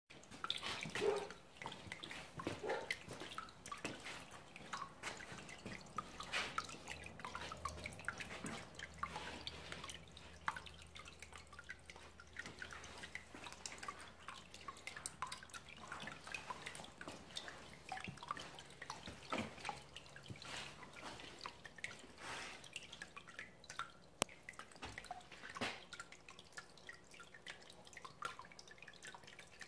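Tabletop artesian-well fountain: water welling up over stacked flagstone and trickling off the slab edges onto beach pebbles, a steady run of small irregular drips and splashes.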